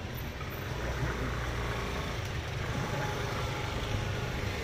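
Road traffic passing, a steady low engine rumble that swells slightly about a second in.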